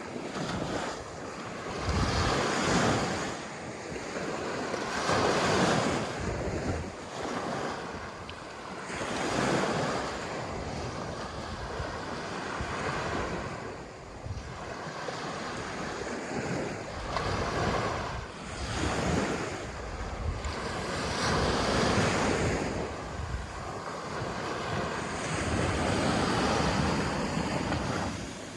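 Sea waves breaking and washing up a sandy beach, the surf swelling and falling back every few seconds, with wind buffeting the microphone.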